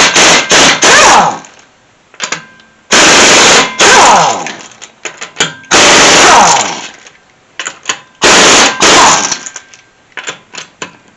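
Impact wrench spinning wheel lug nuts off in repeated short bursts of rapid hammering, each burst about a second long with a whine that shifts in pitch as the nut runs off, and short pauses between nuts.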